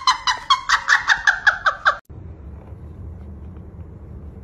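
A woman's high-pitched laughter in rapid, rhythmic bursts of about five a second, cut off abruptly about two seconds in. A faint, steady low hum follows.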